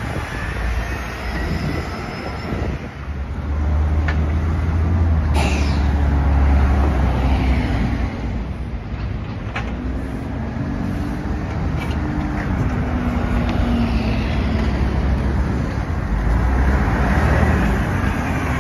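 City buses pulling through a junction one after another, their engines running with a heavy low rumble as they pass, over general street traffic. A few short sharp clicks or knocks are heard along the way.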